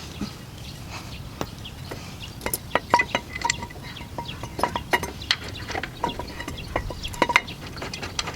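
Metal brake parts and hand tools clinking and tapping: an irregular run of sharp clicks and short ringing metallic clinks, busiest in the middle stretch.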